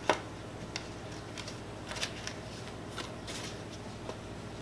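Cardstock paper being handled and folded by hand: a sharp click just after the start, then short bursts of paper rustling and crinkling.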